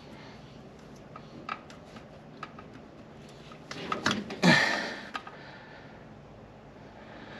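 Light clicks and rustles of hands handling spark plug wires and tools, with a louder rustle about four and a half seconds in.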